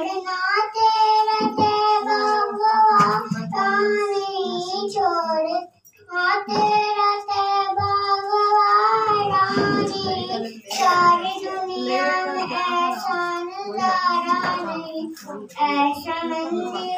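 A young girl singing a naat into a microphone, holding long wavering notes, with a brief pause for breath about six seconds in.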